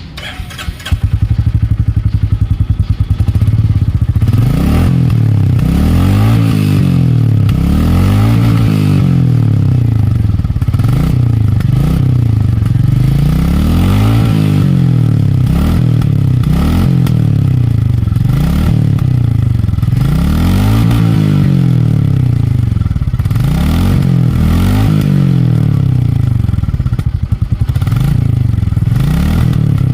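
Royal Enfield 350's single-cylinder engine running through its exhaust, revved up and down over and over from about a second in, its pitch rising and falling every few seconds.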